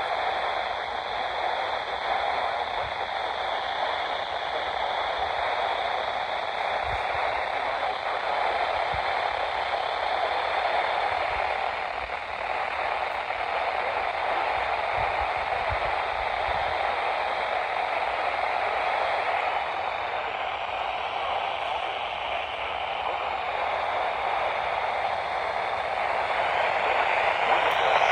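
Radio static: a steady hiss of noise with no programme coming through, growing a little louder near the end.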